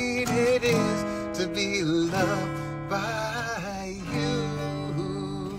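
Acoustic guitar strummed while a man sings over the chords, the close of a serenade.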